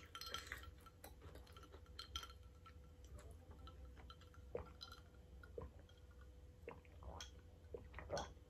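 Faint sipping and swallowing from a glass of iced drink, with ice cubes clinking lightly against the glass and a few louder sips near the end, over a faint steady hum.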